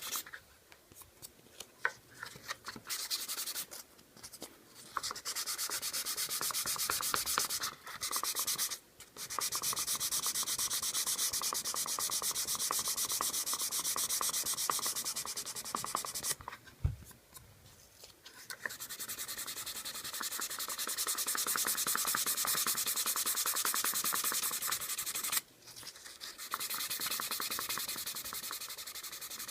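Sandpaper rubbing over a wooden case in long, steady runs, broken by short pauses of about a second.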